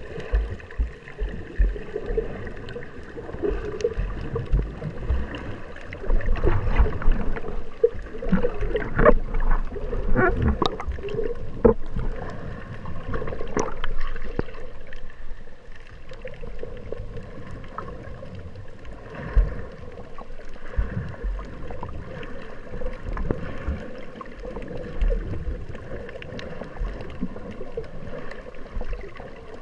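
Muffled underwater sound from a camera held just below the sea surface: water sloshing and gurgling around it, with irregular low thumps and a run of sharp clicks a third of the way in.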